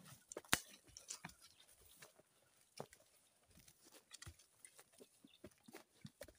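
Footsteps through dry bush and over rock: irregular crunches, twig snaps and brushing of vegetation, a few a second, with one sharper snap about half a second in.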